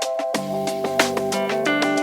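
Background music with a steady beat; bass and plucked guitar notes come in about a third of a second in.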